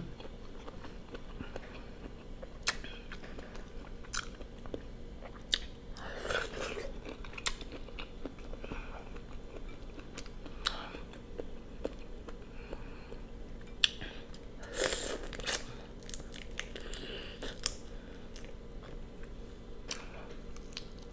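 Close-miked chewing and biting of a prawn boil: soft mouth sounds and sharp wet clicks, with louder bursts of eating about 6 and 15 seconds in.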